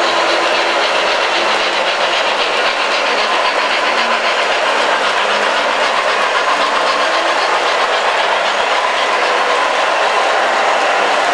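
Lionel and MTH O gauge model trains running on the layout: a steady, even mix of wheels running on the track and electric motors.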